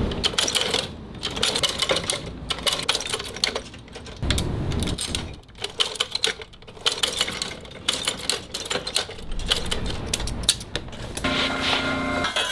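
Rapid, irregular clicking and tapping from hand work on a shoe, with a steady hum of several tones starting about a second before the end.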